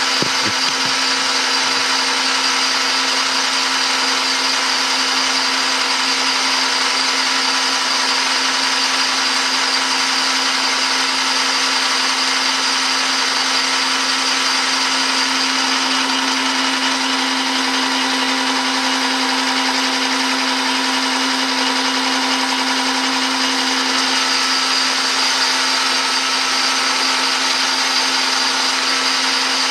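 Metal lathe turning a bar while the tool takes a roughing cut along it: a steady machine hum with a high whine above it.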